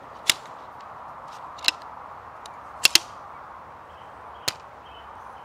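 Shock-corded aluminium chair poles snapping into place as the frame is assembled: a handful of sharp metal clicks, two in quick succession about three seconds in.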